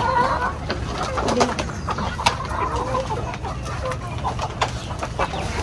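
Chickens in a pen clucking softly and calling, with scattered sharp clicks and taps among them.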